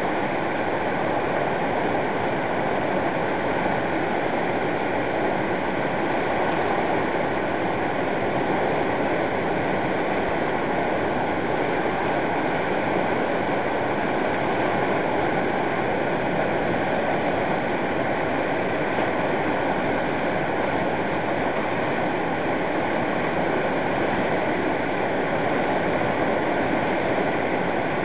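Whitewater river rapid: a steady, loud rush of water pouring over and between boulders.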